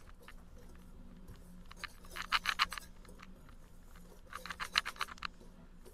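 Wire whisk stirring dry ingredients in a mixing bowl: two short spells of quick ticking and scraping, about two seconds in and again near the end.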